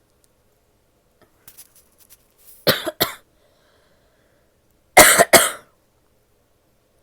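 A woman coughing in two pairs of short coughs, the second pair a couple of seconds later and louder.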